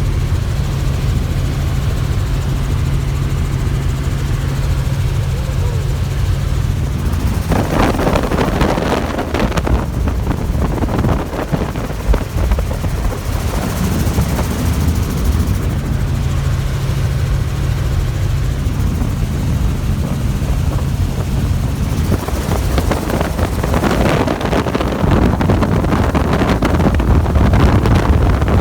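Helicopter in flight: a steady low drone of rotor and engine, with long stretches of rushing noise about a quarter of the way in and again over the last part.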